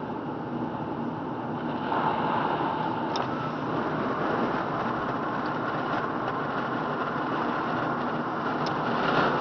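Steady road and tyre noise of a car driving, heard from inside the cabin, growing a little louder about two seconds in.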